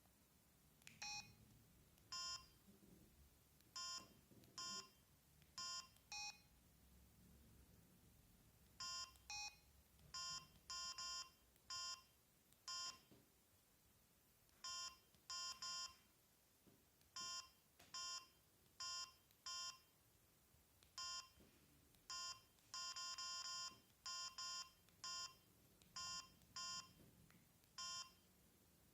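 Samsung SGH-M600 mobile phone beeping as its keys are pressed: short electronic key tones at irregular intervals, some in quick pairs, with a denser run of beeps about three-quarters of the way through.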